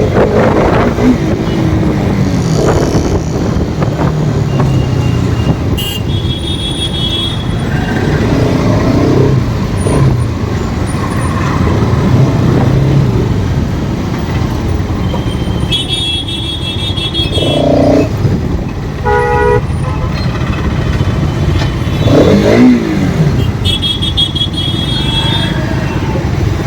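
Motorcycle riding in city traffic, its engine running under a heavy rush of wind on the helmet or bike microphone, with vehicle horns honking several times.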